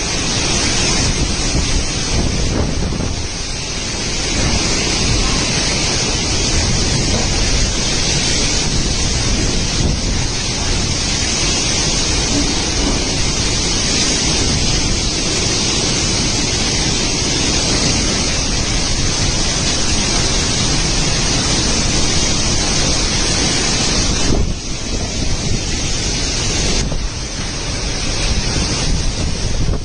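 Heavy rain pouring down in a loud, steady hiss, with a low rumble of wind on the microphone. The hiss eases briefly about 25 seconds in, then comes back.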